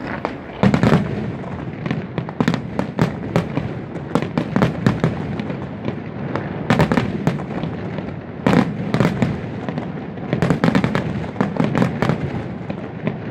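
Fireworks display: aerial shells bursting in rapid volleys of bangs and crackles, with several heavier barrages, the loudest about a second in.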